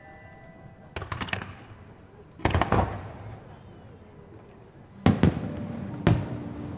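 Aerial fireworks shells bursting in four groups of sharp bangs and crackles, the loudest about two and a half seconds and five seconds in, each trailing off in an echoing rumble. Faint music plays underneath.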